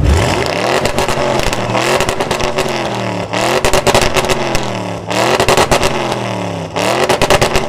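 Modified car exhaust revved in repeated blips about every two seconds, the engine note climbing and falling each time, with a crackling rasp as each rev climbs.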